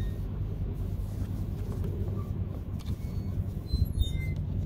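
Steady low rumble of running heavy machinery, with a few faint clicks and short high squeaks about four seconds in.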